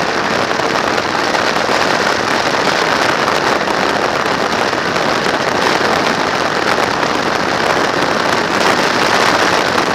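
Steady rush of wind and road noise on a camera mounted on a motor trike's handlebars as it rides along at speed, with no distinct engine note standing out.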